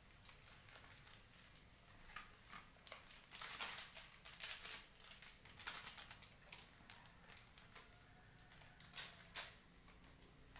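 Faint, irregular clicks and scratchy rustles of kitchen handling while seasoning is added to the noodles, busiest a couple of seconds in and again near the end.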